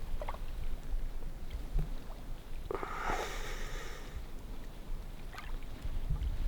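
Wind buffeting the microphone as a steady low rumble, with a brief rustling noise about three seconds in.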